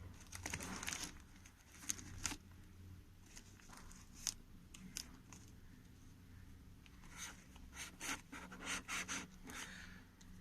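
Cardboard packaging of a MIDI keyboard being handled and opened: irregular short scraping and rustling noises, with a cluster in the first second and a busier run near the end.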